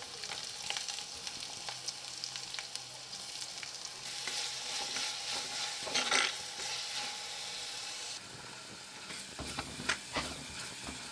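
Crushed onion frying in hot oil in a pan, sizzling steadily while a spoon stirs it, with scattered scrapes and clicks of the spoon against the pan. The sizzle grows louder a few seconds in, then eases off about two-thirds of the way through.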